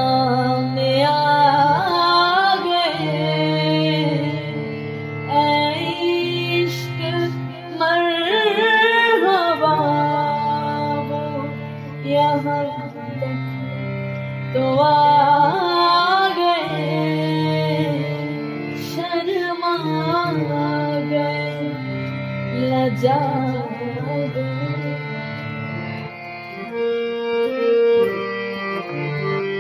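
Music: an Urdu ghazal-style song passage, an ornamented melody full of slides and wavering turns over a steady low drone.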